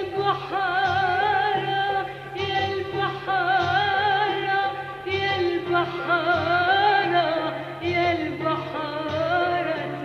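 Music: a wavering, ornamented melody line over a regular low beat.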